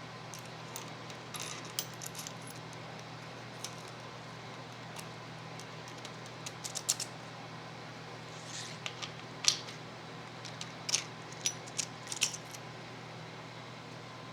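Small metal shock-absorber parts and hand tools clinking and clicking as they are handled during reassembly, in scattered light taps that cluster around the middle and near the end, over a steady low hum.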